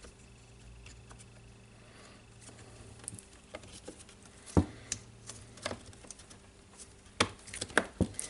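Scattered light clicks and knocks of a Makita DHR243 rotary hammer's housing and small parts being handled and fitted during reassembly. The knocks come sparsely at first and more often and louder in the second half.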